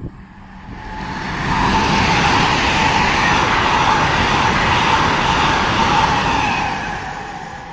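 GWR Intercity Express Train passing through a station at speed without stopping. A rush of wheel and rail noise builds, holds loud for several seconds with a steady whine running through it, then fades away.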